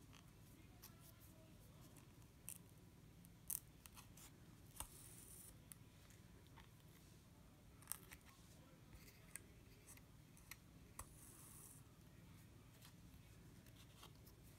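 Faint hand-sewing sounds: scattered small sharp clicks of a needle against a metal thimble and glass seed beads, with soft hissing pulls of thread drawn through the beading backing about five and eleven seconds in.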